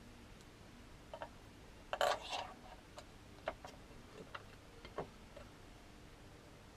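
Small metal parts clicking and tapping as a bolt and components around the clutch of a Kawasaki ZZR1400 are fitted by hand: scattered light clicks, with a brief louder clatter about two seconds in.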